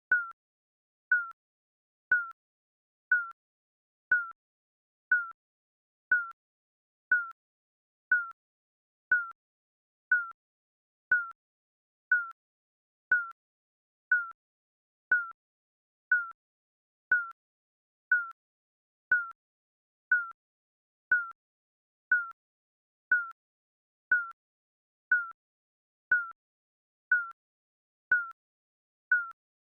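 Digital countdown-timer beep ticking once a second: a short, high electronic beep that starts sharply and dies away quickly, repeating evenly.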